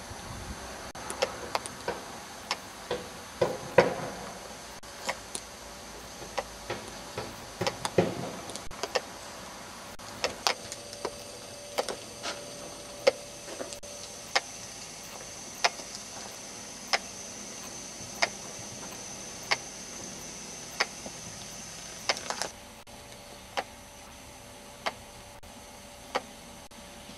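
Footsteps on a hard surface: sharp taps, a few irregular ones at first, then a steady tap about every second and a quarter. Under them runs a faint high steady whine that cuts off suddenly late on.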